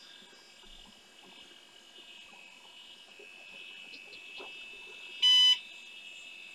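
A single short electronic beep from the IBM PC330's internal PC speaker, one steady pitch lasting about a third of a second, a little over five seconds in. Underneath it there is a faint steady high-pitched whine from the running machine.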